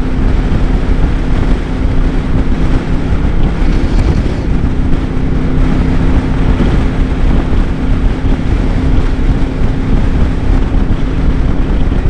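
Royal Enfield Meteor 350's single-cylinder engine running steadily at cruising speed, with heavy wind noise on the microphone.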